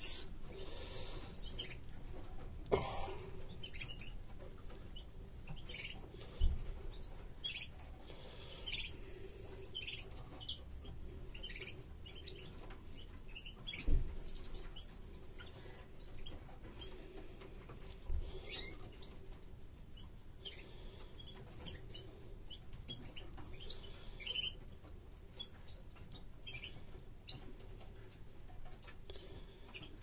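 Young canary chicks giving short, high squeaks every second or so while one is held for closed-ringing, with a few soft low bumps from handling.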